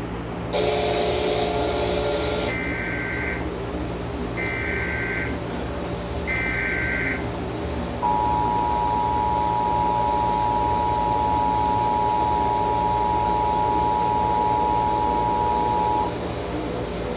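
Emergency Alert System broadcast tones. After a noisy two-second burst near the start come three short screeching SAME header data bursts, about a second apart. Then the EAS two-tone attention signal sounds as one steady dual tone for about eight seconds.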